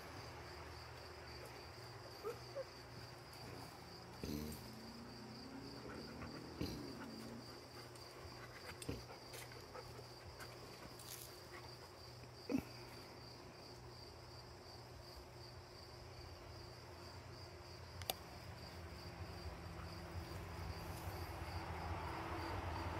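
Faint insect chirping: a high note pulsing evenly, a couple of times a second, without a break. A few short knocks fall here and there, and a low rumble grows louder near the end.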